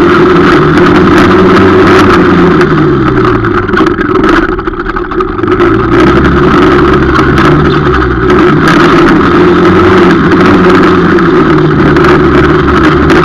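250 cc quad ATV engine running hard, very loud and close, its pitch rising and falling as the throttle is opened and eased. About four to five seconds in, the engine briefly drops in level as the throttle is let off.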